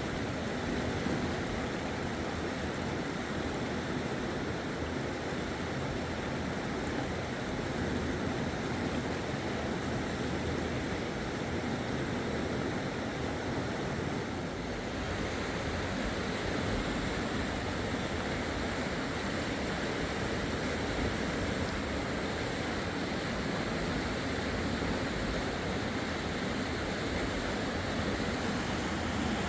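Steady rush of fast-flowing river water, an even noise that holds without a break.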